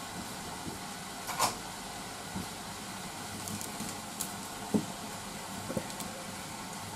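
Chopsticks knocking and clicking against a stainless steel saucepan as cut potatoes and onions are stirred, a few light knocks with the loudest about a second and a half in, over a steady hiss.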